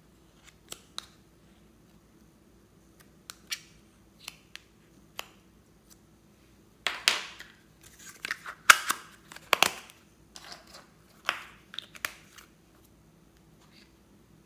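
A metal spoon tapping and scraping soft clay in a thin plastic tub, with a few light clicks. Then, around the middle, a louder run of crackling and clicking plastic as the tub's lid is pressed shut and handled.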